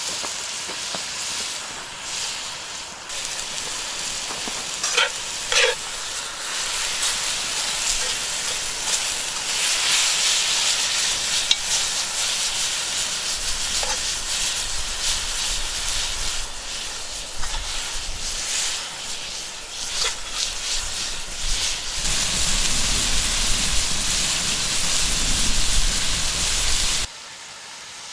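Meat and onions sizzling in butter in a Dutch oven over a campfire, a steady frying hiss with a few short clicks about five seconds in. The sizzle drops away suddenly near the end.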